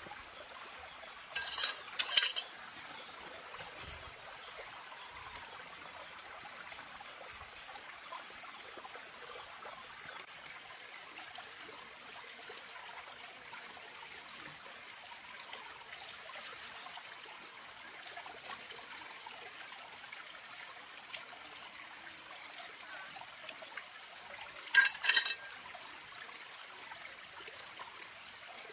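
Steady trickle of running water under a faint, steady high-pitched whine. Two brief clusters of sharp, high sounds break through, one about two seconds in and one near the end.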